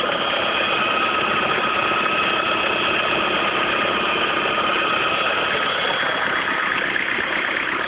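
Electric drill running steadily with a constant whine, driving a small garden pump that pumps waste vegetable oil, over a vehicle engine idling.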